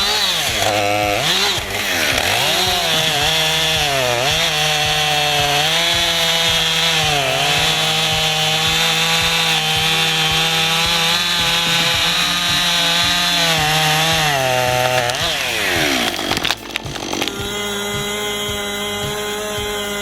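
Chainsaw running hard in a cut, its engine pitch dipping and picking up again as the chain loads and frees. It winds down about sixteen seconds in, and a different steady machine hum follows.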